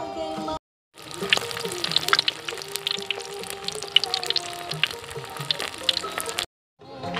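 Skewered, egg-coated cilok deep-frying in hot oil in a wok: a steady sizzle with many sharp pops and crackles.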